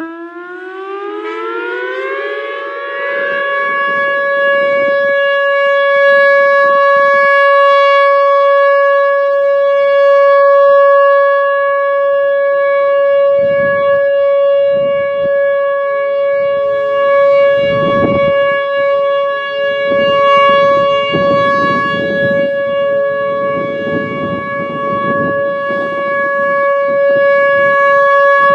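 Whelen Vortex R4 electronic outdoor warning siren winding up over about two seconds and then sounding a steady alert tone. It swells louder as it goes, with wind gusting on the microphone. A second, lower and fainter siren tone from more distant sirens sits underneath.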